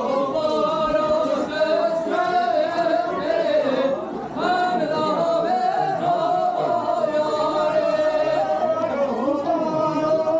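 Kurdish halay wedding music with a voice singing a long, wavering melody over it.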